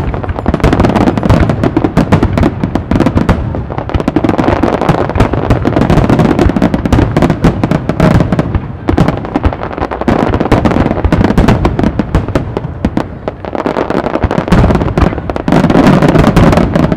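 Starmine fireworks barrage: a rapid, unbroken stream of shell bursts, dense cracks over booming low rumble, heaviest just before the end.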